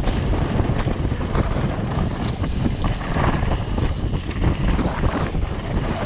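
Wind buffeting the microphone on a fast downhill mountain-bike descent, with a continual clatter of short knocks and rattles from the bike over rough ground.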